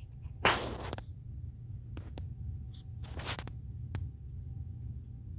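Two short rustles and a few light clicks over a steady low hum.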